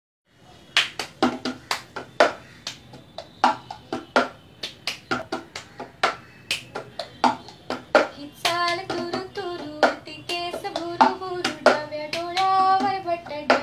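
Cup-song rhythm: hand claps and a plastic cup tapped, slapped and set down on a wooden tabletop in a repeating pattern. About two-thirds of the way through, a woman starts singing over the rhythm.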